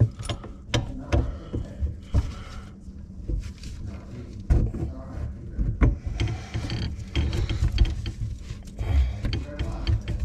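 Knocks, clunks and scraping as a garbage disposal is turned on its sink mounting ring and a drain trap is fitted to it, with irregular sharp clicks throughout.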